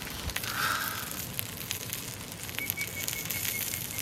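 Wood fire crackling and popping in the firebox of a Winnerwell Iron camping stove, with cabbage rolls grilling on its grill plate, over a steady background hiss.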